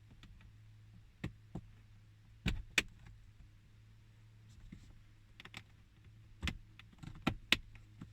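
Irregular sharp clicks and knocks of hard plastic car-interior parts and fasteners being handled and worked loose, over a low steady hum.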